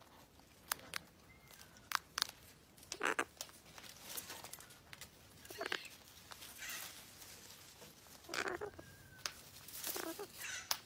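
Male gang-gang cockatoo cracking and chewing food held in its foot. Its beak makes sharp clicks, with a few louder, rougher crunches.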